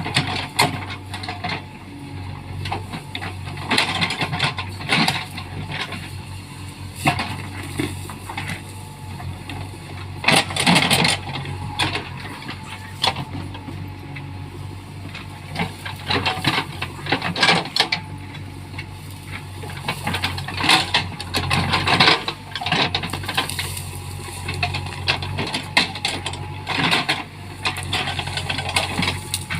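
JCB backhoe loader's diesel engine running steadily under repeated sharp clattering and cracking as it clears trees and brush, loudest in bursts around the middle.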